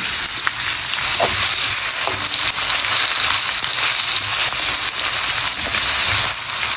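Sliced onions sizzling steadily in hot oil in a black kadhai (wok-shaped pan), stirred with a slotted spatula, the first stage of browning the onions.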